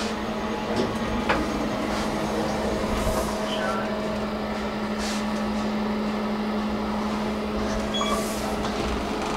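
KONE elevator at its landing with the car doors open. A steady low hum runs throughout, with a few faint clicks, short high beeps and brief airy hisses.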